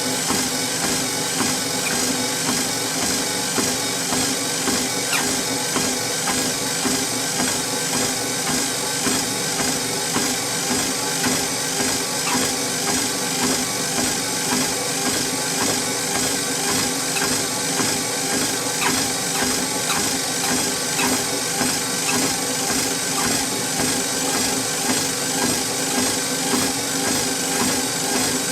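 Treadmill in use for walking: a steady hum from the motor and belt with the regular, even beat of footsteps on the moving belt.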